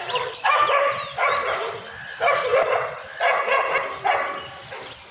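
Dogs barking in four quick, excited bursts of several barks each, with short gaps between.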